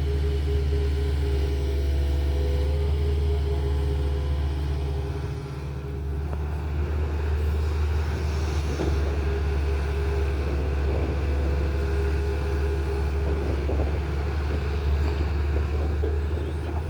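Tata Hitachi excavator's diesel engine running steadily at working revs, dipping briefly about five seconds in, with irregular knocks over the second half.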